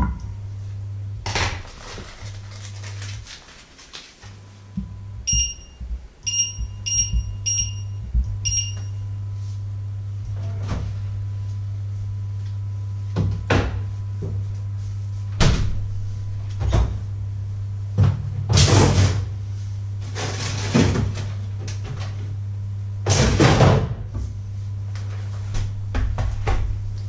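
Glass-top electric hob humming steadily as it heats a steel pan, with five short beeps from its touch controls a few seconds in. Thumps and rustling clatter of kitchen handling come through it, including a fridge door, loudest past the middle.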